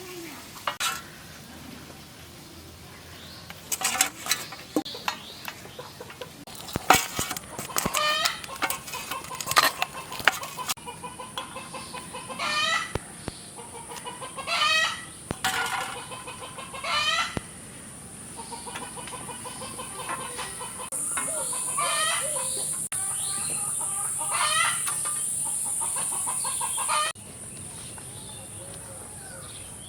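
Domestic chickens clucking and calling over and over, with a few sharp knocks in the first third. A steady high insect drone comes in about a third of the way through and is louder in the second half.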